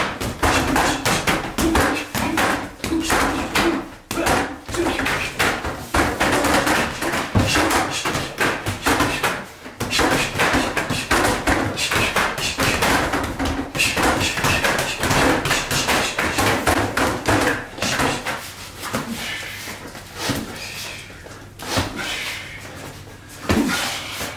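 Boxing gloves striking punching bags, a rapid run of thuds and slaps.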